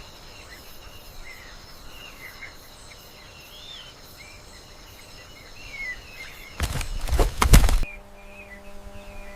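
Nature ambience: short bird chirps over a steady high insect drone. About seven seconds in comes a loud noisy burst lasting about a second, after which a steady low hum sets in.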